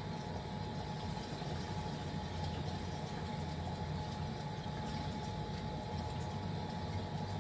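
A motor or engine running steadily: a constant low hum with a faint steady whine above it.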